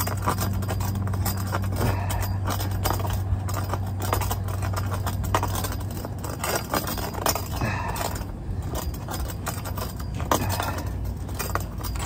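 Hand tubing cutter being turned around 3/4-inch copper pipe, its cutting wheel scoring the copper with repeated metallic clicks and scraping.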